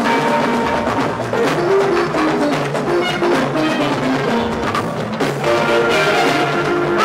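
Drum ensemble playing, a busy rhythm of drums and percussion with short pitched drum notes.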